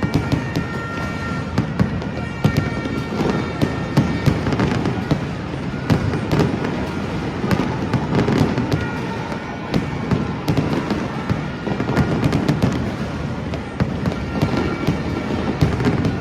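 Fireworks display going off continuously, a dense run of bangs and crackling pops with no break.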